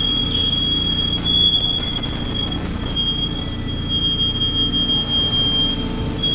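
Audi A3's brake pads squealing with the brake applied as the wheel turns: one steady, high-pitched whistle over the low rumble of the spinning wheel and engine. This is typical brake-pad squeal, caused by the pads vibrating against the disc and passing that vibration to the caliper piston.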